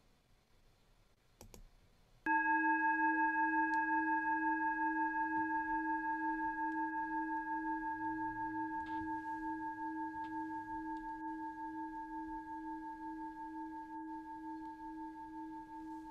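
A singing bowl struck once about two seconds in. It rings with a low hum and several higher overtones that waver in a slow pulse and fade gradually, marking the start of a silent prayer.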